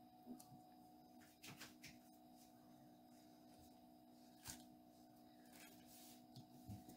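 Near silence with a few faint rustles and taps from hands handling the baking paper under a sheet of rolled pizza dough, over a faint steady hum.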